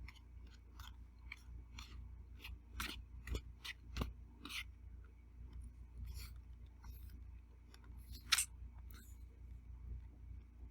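Close-up chewing of beef teriyaki, zucchini and mushrooms: a run of short, wet mouth clicks, several a second at first and then sparser. One sharper, louder click comes about eight seconds in.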